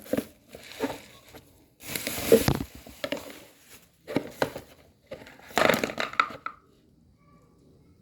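Packaging being handled and crinkled, in several bursts of rustling and crackling.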